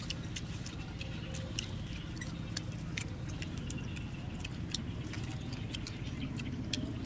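Eating sounds: roasted duck being chewed and pulled apart by hand, making irregular sharp clicks and smacks over a steady low rumble.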